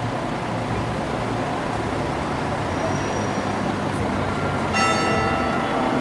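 Steady vehicle engine running at idle, with a low even rumble. Music with sustained notes comes in about five seconds in.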